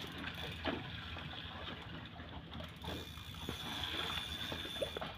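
Scattered light clicks from a fishing reel as a hooked fish is fought on a bent rod, over a low steady hum.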